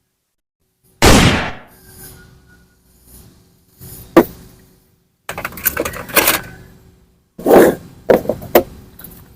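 Plastic toy guns being handled: two sharp, loud thumps that die away quickly, single clicks, and a burst of rapid clattering in the middle.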